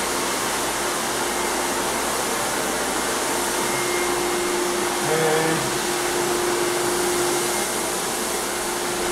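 Single-disc rotary floor buffer running steadily across a hardwood floor, together with the backpack vacuum hooked to it for dust collection, scuffing the old finish so a new coat will adhere. A steady hum joins the noise about three seconds in.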